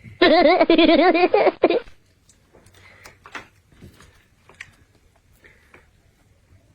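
A loud warbling sound effect with a steadily wavering pitch, lasting a little under two seconds, then faint scattered clicks and taps of tableware.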